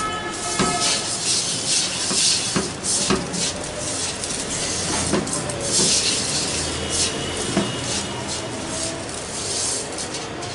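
Silicone spatula stirring and scraping crumbly khoya and sugar around a non-stick pan: continuous rustling strokes that swell and fall, with a few sharp knocks of the spatula against the pan.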